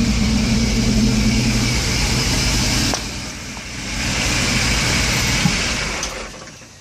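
Jeep engine idling with a belt-driven York compressor running for onboard air. The sound dips about three seconds in, picks up again a second later, and fades away near the end.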